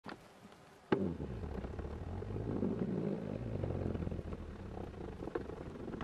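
Canon PowerShot SX60 HS's built-in zoom motor running as the lens zooms in: a click about a second in, then a steady low hum that fades near the end.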